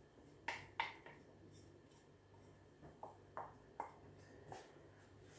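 Light clicking taps of a small plastic bowl knocked against the rim of a plastic mixing bowl as the yeast mixture is emptied into the flour: two sharper taps about half a second in, then several softer ones a couple of seconds later.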